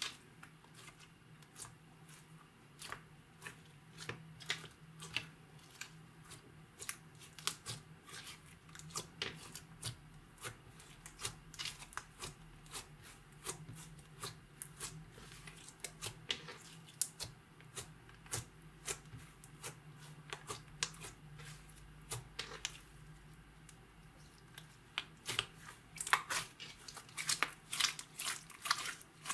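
Clear slime being worked by hand, giving many irregular sticky clicks and pops, which come thicker and louder near the end.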